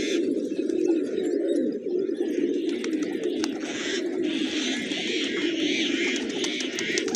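A flock of pigeons cooing without pause in a low, wavering chorus, with higher chirping over it at times, strongest from about four seconds in, and a few scattered clicks.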